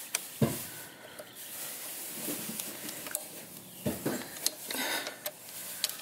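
Light metallic clicks and taps of a hex tool working the bolts of a motorcycle's Nissin front brake caliper as they are loosened and drawn out, a few scattered single clicks with a cluster of them about four to five seconds in.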